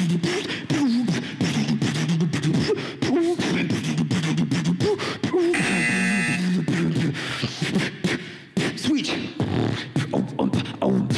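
Solo human beatboxing into a microphone: a fast run of vocal kick, snare and click sounds over a hummed bass line, with sliding vocal effects and a short held buzzing note about halfway through.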